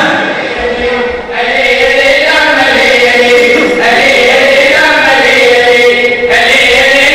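Melodic chanting of a majlis mourning recitation, sung in long held phrases that break off about every two and a half seconds.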